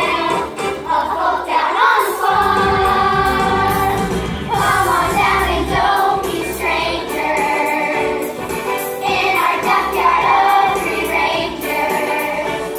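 An ensemble of voices singing together over instrumental accompaniment: a musical-theatre song.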